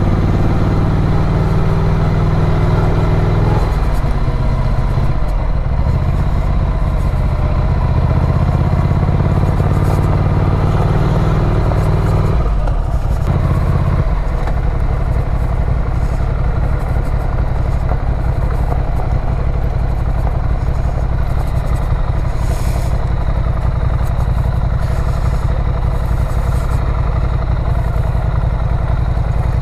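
Ducati Scrambler's air-cooled L-twin engine running under way on the road. Its note changes about four seconds in and dips briefly around thirteen seconds before steadying again.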